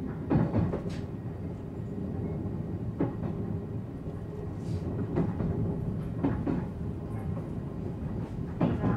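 On-board running noise of a JR 719 series electric multiple unit: a steady low rumble, broken by several short knocks at uneven intervals.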